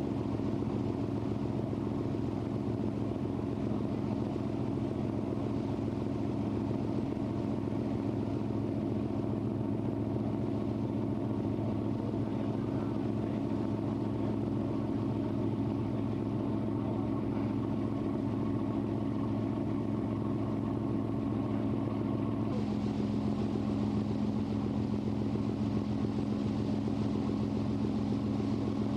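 Passenger cruise boat's engine running steadily, a low drone with several steady tones under a haze of water and wind noise, heard on board. A little more hiss joins about two-thirds of the way through.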